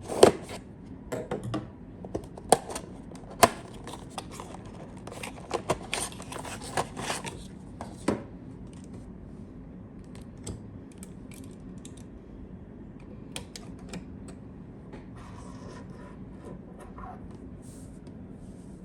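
Hands handling computer parts and their packaging: a busy run of clicks, scrapes and rustles over the first eight seconds or so, then only a few scattered light clicks.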